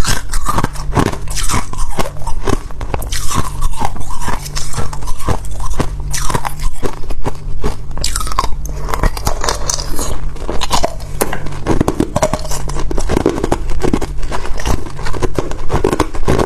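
Ice being bitten and chewed close to the microphone: continuous sharp cracking and crunching as the ice breaks between the teeth.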